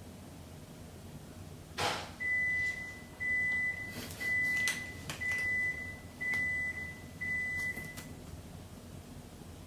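An electronic appliance beeper sounding six steady high beeps, each a little under a second long, about one a second. A short knock comes just before the first beep.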